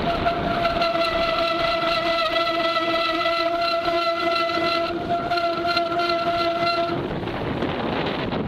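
A sustained pitched tone held steady for about seven seconds, then cutting off, over wind noise on the microphone.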